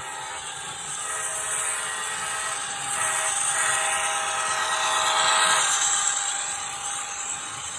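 Sound decoder in an HO scale GE AC4400CW model locomotive playing a multi-chime diesel horn through its small speaker: a long blast, a brief break about three seconds in, then a second blast that stops around six seconds, over the model's running sound.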